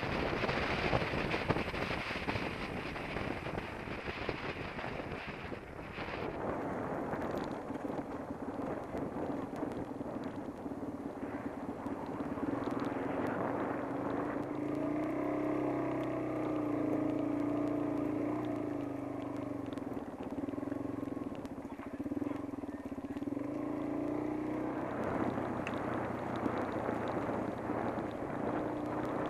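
Wind and rolling noise picked up by a helmet camera as mountain bikes ride fast in a pack. From about six seconds in, a steady buzzing hum joins it.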